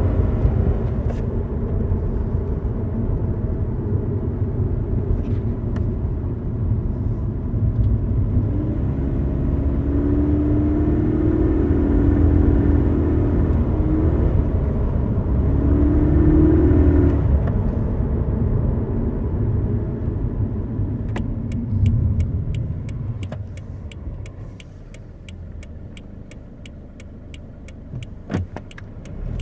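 Cabin noise of a 2018 Subaru BRZ tS driving: low road and drivetrain rumble with the flat-four engine droning through the middle. About two-thirds of the way through the rumble drops away and a regular clicking starts, several clicks a second.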